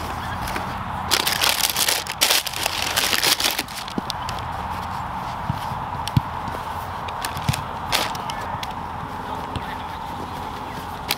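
Cardboard shoebox and tissue paper rustling and crinkling as the lid comes off and a football boot is lifted out of its wrapping. The rustling is loudest a second or two in, then lighter crinkles and small clicks follow.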